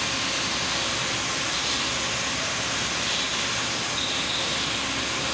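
A steady, even hiss with no distinct knocks or clicks, holding at the same level throughout.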